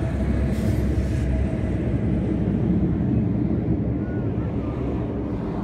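Distant jet engine noise from the USAF Thunderbirds' F-16 Fighting Falcon formation flying overhead: a steady, deep rumble that fades slightly toward the end, with wind buffeting the microphone.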